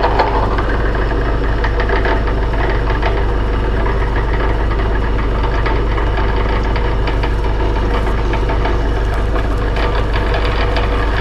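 Benchtop drill press running steadily, its motor hum even throughout, while a number one center drill spots a center-punched mark in a sheet-metal plate, with a faint fine chatter from the cut.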